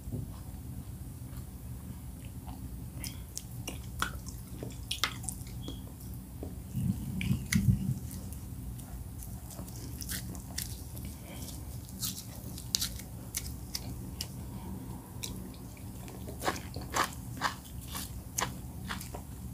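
Close-miked mouth sounds of someone eating soft oat fufu with bitterleaf soup: scattered wet chewing clicks and smacks, coming thicker near the end. There is a steady low hum underneath and a short louder low burst about seven seconds in.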